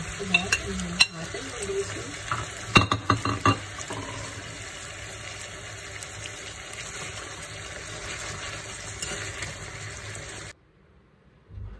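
Food sizzling in a frying pan, with a few sharp knocks and scrapes of a utensil against the pan in the first few seconds. The sizzle cuts off suddenly near the end, followed by one short thump.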